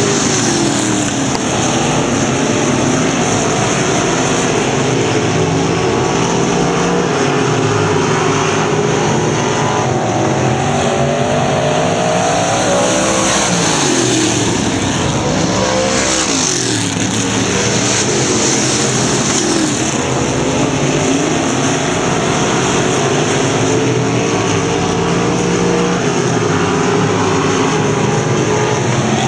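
Dirt-track stock car engines running and revving as the cars circle the oval. Around the middle, cars pass close by, their engine pitch rising and then falling.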